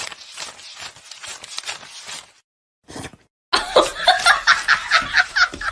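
A person laughing: quick, breathy chuckles at first, then after a short pause a louder burst of laughter in rapid pulses.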